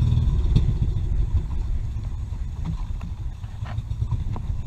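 Engine of a small wooden motorboat running steadily under way, a low, fast-pulsing note, with a single knock about half a second in.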